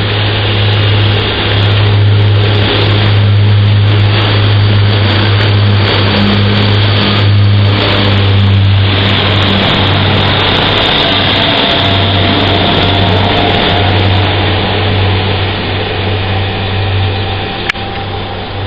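Diesel multiple-unit trains, a Pacer railbus among them, running through a station: a steady low engine drone with rumbling noise from the moving train, easing off about halfway through.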